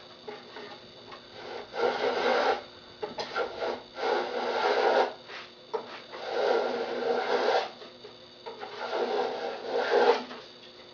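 Hand plane shaving a long wooden board, four long strokes about two seconds apart, each a rasping hiss of blade on wood.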